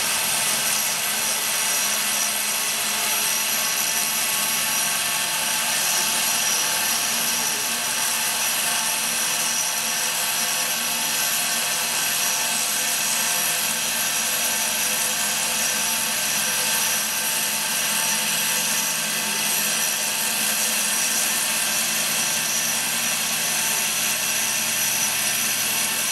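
CNC wire foam-cutting machine running while its wire slices through a polystyrene block: a steady machine noise, mostly a hiss with a constant whine, unchanging.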